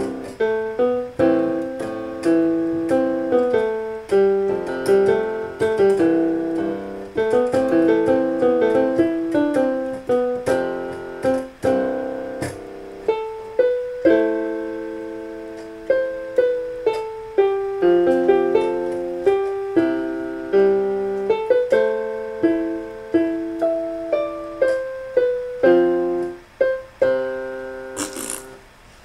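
Piano played solo, a steady run of chords and melody notes, each struck and fading, without singing; the playing stops shortly before the end.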